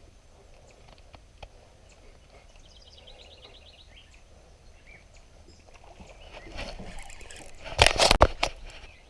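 Quiet lakeside background with a short bird trill about three seconds in, then near the end a loud burst of splashing and knocks close by on the small boat.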